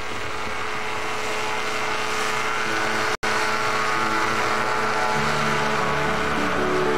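Powered parachute engine and propeller running hard on the takeoff run, a steady drone. The sound drops out for an instant about three seconds in.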